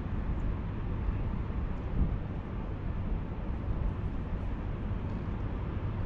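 Wind buffeting the microphone: an uneven low rumble that rises and falls, with a brief swell about two seconds in.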